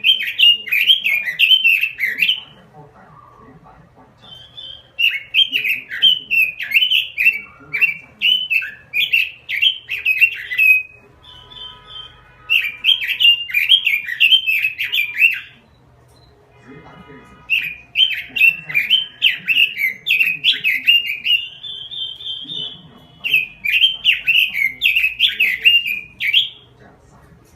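Red-billed leiothrix (Pekin robin) singing: five phrases of rapid, warbling notes, each lasting a few seconds with short pauses between.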